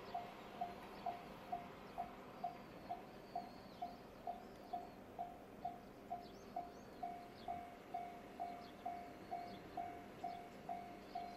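Electronic level-crossing warning bell beside a Japanese railway line, ringing with even, identical dings about twice a second. Faint bird chirps sound above it.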